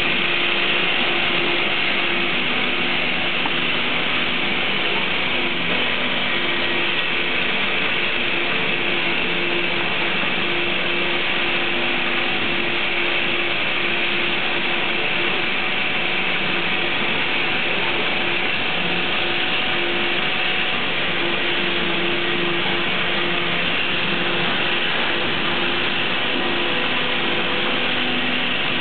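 Bottle-cap conveyor line and feeder running steadily: a continuous mechanical clatter with a faint steady hum underneath.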